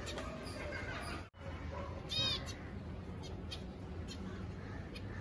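Zebra finches giving short, faint chirping calls, with one louder call about two seconds in.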